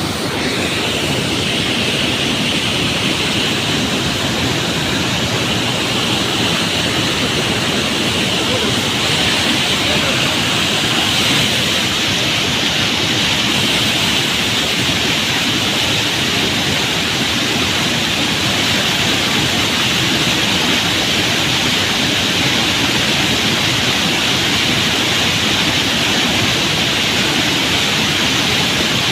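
Waterfall running full: a loud, steady rushing roar of falling water.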